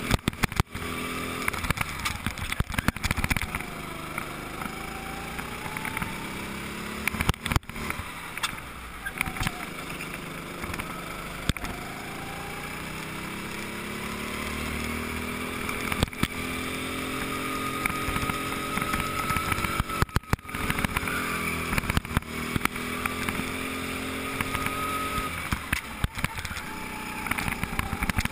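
Go-kart engine running at varying speed, heard from on board, its pitch rising and falling again and again as it speeds up and slows. Several sharp knocks break in along the way.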